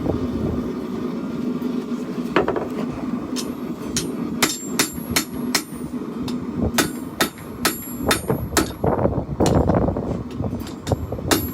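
Hand hammer striking hot steel on an anvil while forging a chopper blade: irregular ringing blows, about two a second, beginning about two seconds in over a steady low hum.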